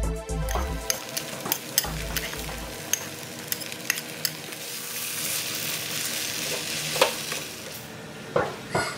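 Egg noodles stir-frying in a wok: a metal spatula scrapes and taps against the pan while the noodles sizzle, the sizzle growing louder past the middle.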